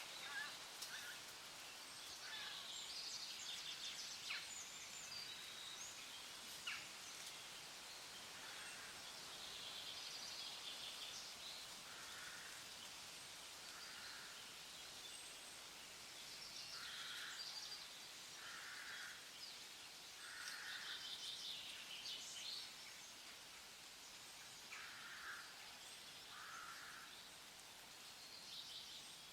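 Several wild birds calling over a steady background hiss: one short call repeats every second or two, with clusters of higher, quicker chirps in between.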